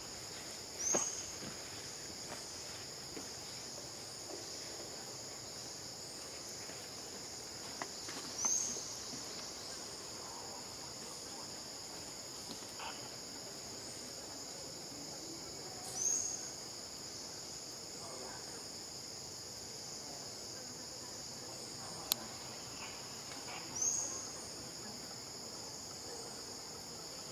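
Steady, high-pitched insect chorus of crickets or cicadas. A short rising call comes in four times, about every seven to eight seconds, and there is one sharp click near the end.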